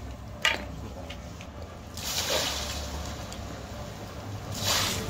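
Water poured from a bucket splashing onto a vented, still-smoking LiPo battery pack to douse it. The loudest splash comes near the end, after a shorter rush about two seconds in and a sharp click about half a second in.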